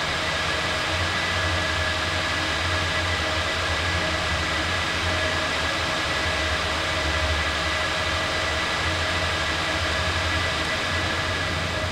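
Steady drone of yarn winding and twisting machinery in a glass-fibre plant: an even mechanical noise with a low hum and a few constant whining tones.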